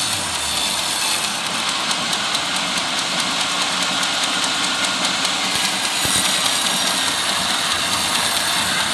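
Portable sawmill running steadily, its engine and saw making a loud, even machine noise, with a brighter, higher layer added from about one to five seconds in.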